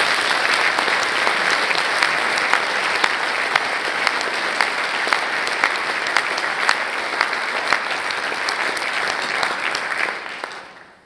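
Audience applauding: dense, sustained clapping with sharper single claps standing out, fading away near the end.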